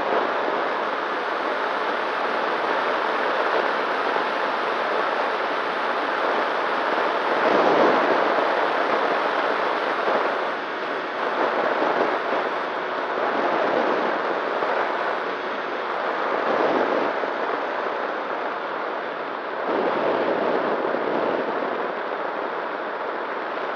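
Airflow rushing over the onboard camera microphone of a ZOHD Nano Talon FPV plane in flight, with a faint steady hum from its electric motor and propeller underneath. The rush swells and eases several times as the plane turns and changes speed.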